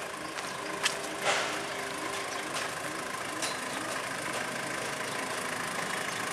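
Engine of a Mitsubishi L200 (Strada) double-cab pickup running steadily at low speed as the truck rolls slowly past, with a couple of light knocks about a second in.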